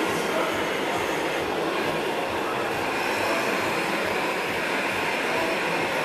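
Steady mechanical running noise of radio-controlled model trucks, even and unbroken.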